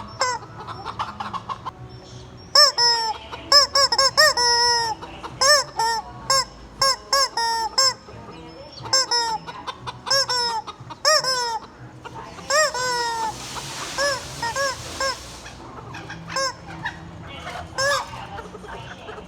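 Rubber squeaky chicken toy squawking as it is squeezed over and over, each squeeze a short honk that rises and falls in pitch, in quick runs separated by short pauses. A longer breathy, hissing stretch comes about two-thirds of the way through.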